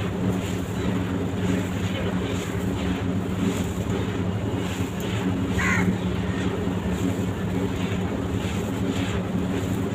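Dry sand-cement blocks crumbling with a gritty crunch, over a steady low hum. A single bird-like chirp comes about six seconds in.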